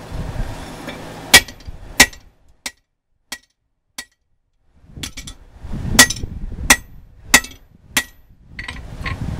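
Hammer blows on a steel drift as it is driven through the hot eye of an axe head: sharp ringing metal strikes about two-thirds of a second apart, in two runs of four or five with a short pause between, over a low rumble.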